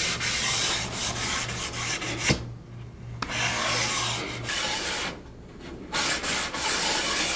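Fine Scotch-Brite abrasive pad rubbed quickly back and forth along the edges and beaded moulding of finished wood, smoothing the dried finish without cutting through the sharp edges. The rubbing stops briefly twice, about two and a half and five seconds in.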